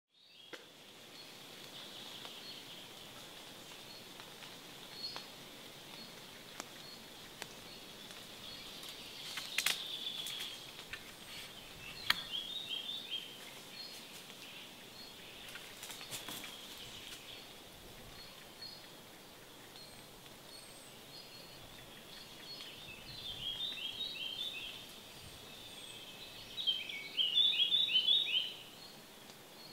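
Woodland birdsong: birds singing in short bursts of quick chirps, loudest near the end, over a steady high-pitched background chorus. A few sharp clicks come in the first half.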